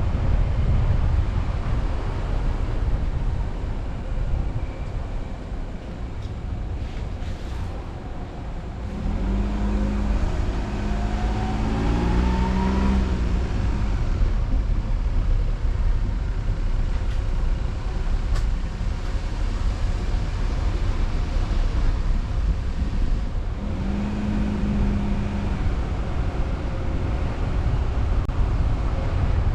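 A car being driven, with steady low engine and road noise. A pitched engine note rises for a few seconds about ten seconds in, and a short steady hum comes back near the end.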